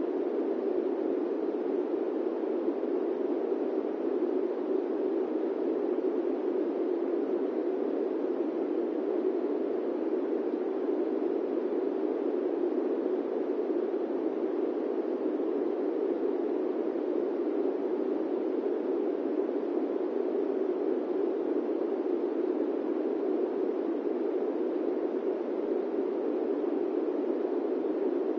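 Steady airplane-cabin white noise: an even, unbroken rush centred in the low-middle range, with no changes or distinct events.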